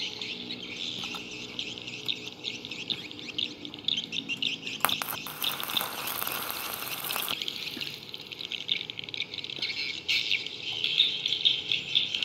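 Stick-welding arc on steel rebar: a few sharp crackles as the rod strikes, then about two seconds of steady frying hiss that cuts off suddenly, over the continuous chirping of birds and insects.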